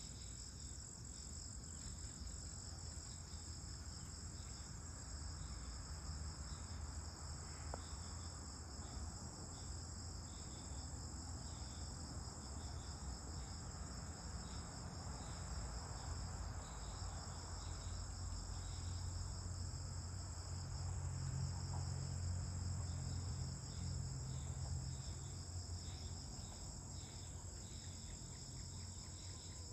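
Evening insect chorus: steady, unbroken high-pitched trilling. A low rumble runs underneath and grows louder about two-thirds of the way through.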